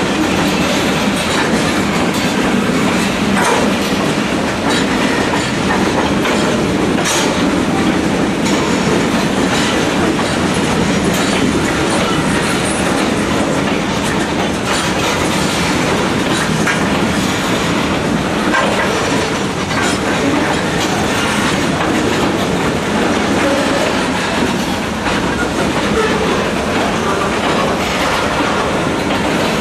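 Freight train's tank cars and boxcars rolling past, a steady rumble of steel wheels on rail with a clickety-clack of wheels crossing rail joints.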